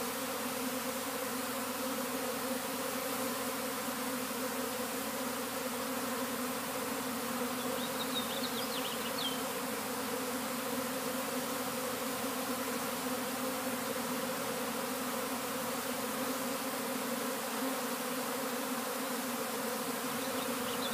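Honeybee swarm in flight: a steady, unbroken buzz of a great many bees in the air around the swarming colony.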